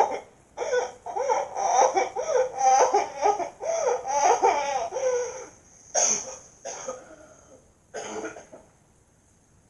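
A cartoon character crying: quick, broken, high sobbing for about five seconds, then a few short separate sobbing gasps before it dies away.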